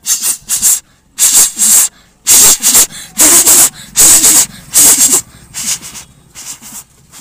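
A boy's mouth imitation of a train crossing a bridge: breathy hissing 'chh' bursts in a clattering rhythm, paired about once a second, loudest in the middle and fading toward the end.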